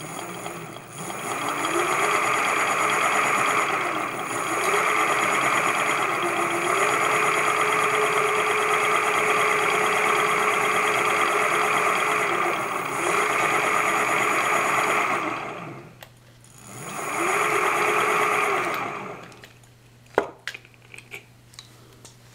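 Brushless e-bike hub motor spinning unloaded, driven by a repaired Crystalite version 2 controller: a whine that rises in pitch as it spins up, holds steady with a few brief dips in speed, then winds down to a stop. It spins up once more briefly and stops, followed by a few clicks; the smooth run shows the controller now works.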